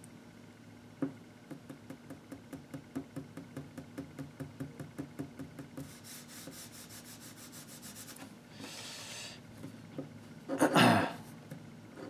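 Pen and hand on a paper sheet at a desk: a light knock, then a run of quick light taps, about four a second, then the hand rubbing across the paper and a louder brief rustle near the end.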